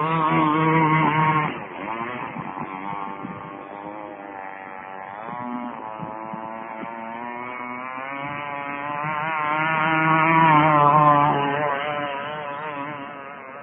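Small 23cc two-stroke outboard engine on a 1/4-scale RC tunnel-hull boat running at speed, its pitch wavering. It is loud at first, drops away about a second and a half in, then swells to its loudest around ten seconds in and fades toward the end, as the boat passes.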